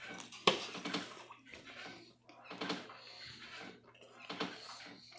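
A person biting into and chewing a slice of pepperoni pizza, with irregular soft mouth and chewing noises.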